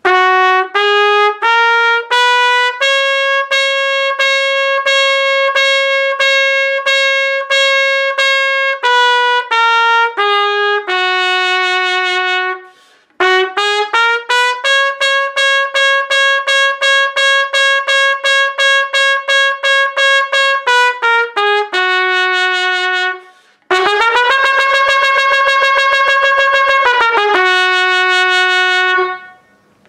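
Trumpet playing a single-tonguing exercise in A flat. Short tongued notes climb stepwise from A flat to E flat, repeat the top note many times, then step back down to a held note. This comes in three phrases, each tongued faster than the last, ending in a rapid stream of notes.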